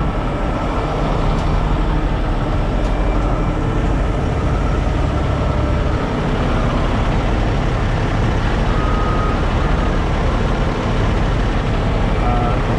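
Heavy-duty diesel truck engines running steadily, a continuous low engine noise with no breaks.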